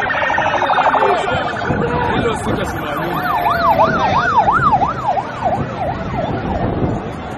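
Electronic vehicle siren: a rapid pulsing warble in the first second or so, then a yelp that sweeps up and down a little over twice a second for a few seconds, growing fainter near the end.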